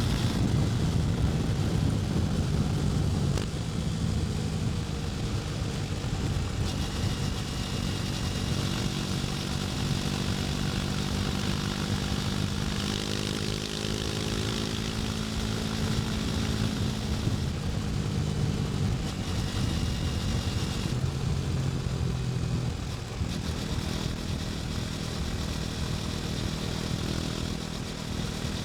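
KTM Duke 250's single-cylinder four-stroke engine running under way, its note steady for long stretches and rising and falling in pitch around the middle, with another shift in note near the end.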